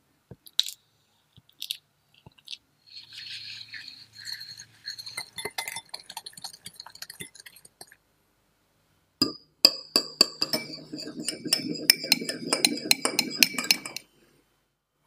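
Wire balloon whisk creaming butter and icing sugar in a glass bowl, its wires clinking and scraping against the glass. A few light taps at first, then steadier whisking, then fast, vigorous beating from about nine seconds in that stops abruptly near the end.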